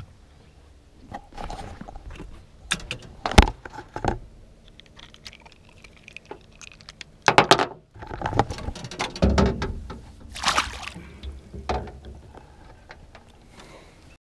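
Sharp knocks and rattles of handling on a boat, then splashing a few seconds later as a flathead is put back into the river.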